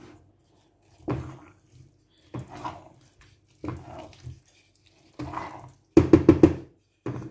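Wooden spoon stirring thick, wet coconut rice in a stainless steel pot: squelching strokes about every second and a half, then a quick run of four or five louder knocks about six seconds in.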